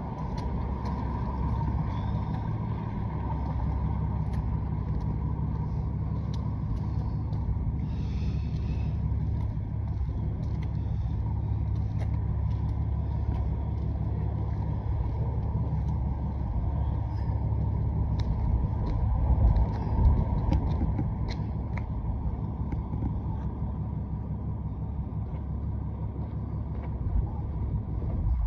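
Steady low rumble of street traffic, a little louder about two thirds of the way through, with faint clicks and taps over it.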